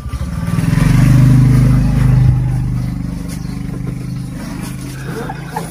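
A vehicle engine running with a steady low hum, swelling to its loudest about a second in and then slowly easing off.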